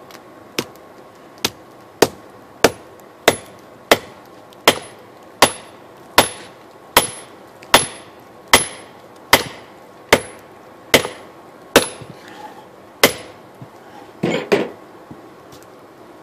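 Hand hammer striking red-hot steel, cut from an old adjustable wrench and held in tongs, on a small round anvil block. About fifteen heavy blows come at a steady pace, roughly one every three-quarters of a second, each with a short metallic ring, and a rougher clatter follows near the end.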